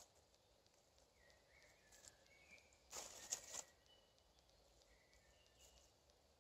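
Faint rustle and clatter of dry wooden sticks being handled against the leaf litter, once about three seconds in, over a quiet woodland background with faint bird chirps.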